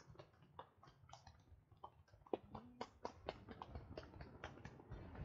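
Near silence, with faint, irregular clicks and ticks scattered throughout.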